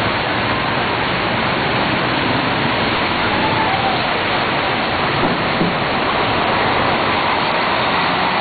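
Floodwater rushing through a street, a steady loud rushing hiss, with a bus's wheels churning through the water.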